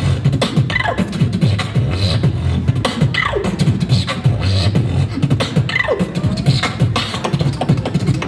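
Beatboxing into a handheld microphone: rapid percussive clicks and hits over a deep humming bass, with a few falling vocal swoops.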